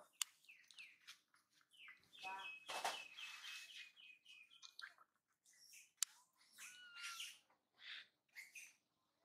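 Faint high-pitched chirping calls in short bursts, including a run of quick, evenly repeated chirps about two to five seconds in. There is a sharp click near the start and another about six seconds in.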